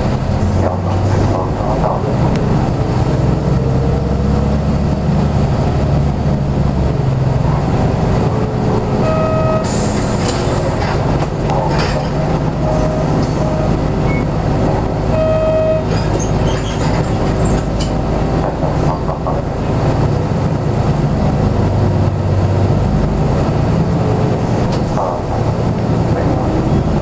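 Hino Blue Ribbon city bus's diesel engine and drivetrain running under way, heard from inside the cabin, the engine note shifting a few times. Short electronic beeps sound about a third of the way in and again just past halfway, with a brief hiss just after the first beeps.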